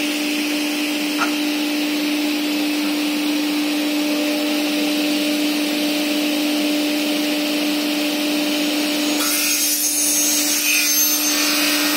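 CNC single-head window-profile cutting saw running with a steady motor hum while its blade cuts a metal profile. About nine seconds in, the sound turns harsher and hissier.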